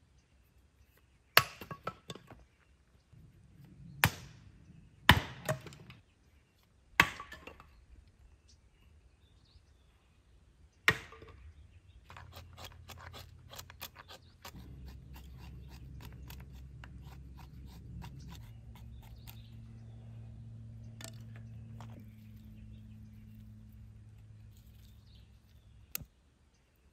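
Axe strikes splitting firewood rounds on a wooden chopping block: six loud, sharp cracking blows, irregularly spaced over the first eleven seconds. After that come many small clicks and cracks as kindling is split by hand on the block, over a low steady hum.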